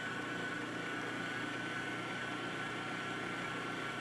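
Arno stand mixer running steadily with a high motor whine, its wire whisk beating thick cake batter to work in the flour that has just been added.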